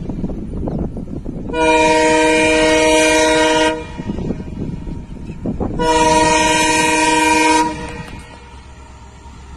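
Freight train's horn giving two long blasts of about two seconds each, several notes sounding together, over the rumble and clatter of the passing train's wheels, which grows quieter near the end.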